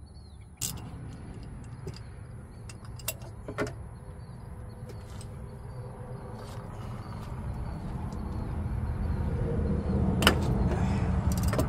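A few sharp metallic clicks of a wrench working on the fitting of a diesel engine's exhaust gas pressure sensor, over a low rumble that grows louder toward the end.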